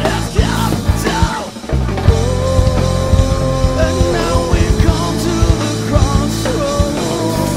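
Live rock band playing, with a male singer over electric bass and drums. There is a short drop about a second and a half in, then long held notes.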